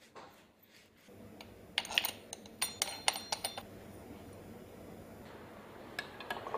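Light metallic clinks and clicks from fitting the stainless blade guard cover onto a Bamix hand blender's shaft, a quick run of them about two to three and a half seconds in. A few more knocks near the end as the blender is set into its plastic stand.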